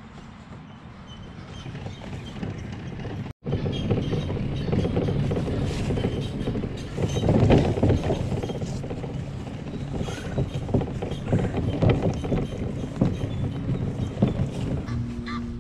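A plastic Ascend 133X kayak rattling and knocking on its wheeled cart as it is pulled along, first over pavement and then over grass. There is an abrupt cut about three seconds in, after which the rattling is louder, with many sharp knocks.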